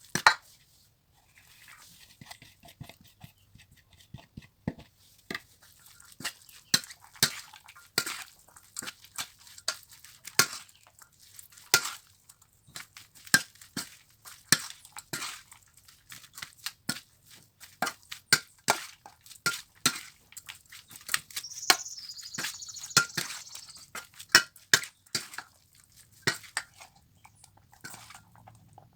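Kitchen food preparation: irregular sharp clicks and knocks of utensils and dishes, about one or two a second. A brief high squeak comes about three-quarters through.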